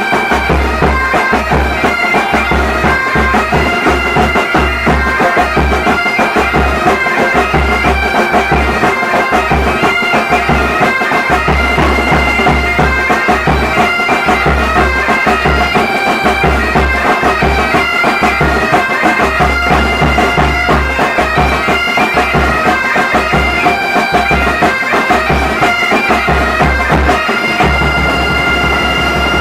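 Military pipe band playing an Uttarakhand mangal geet tune on bagpipes over their steady drone, with a drum beating a regular rhythm underneath.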